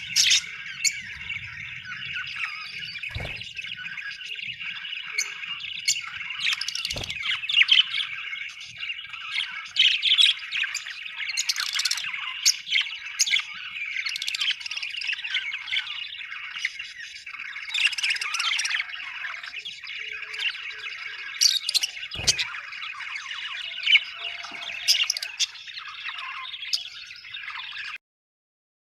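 A flock of budgerigars chattering continuously, a dense mix of warbling chirps and sharper squawks, with a few soft thumps. The sound cuts off abruptly near the end.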